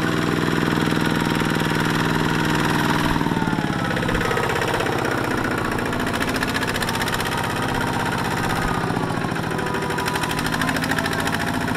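Single-cylinder diesel engine of a two-wheel walking tractor running under load as it drags a loaded rice trailer out of deep mud. It starts as a steady, even note, and about three seconds in it turns rougher and more uneven.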